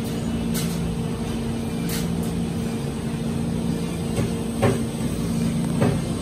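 Steady mechanical hum of shop equipment in a seafood market, holding several even tones over a low rumble, with a few sharp clicks and knocks, the loudest about four and a half seconds in.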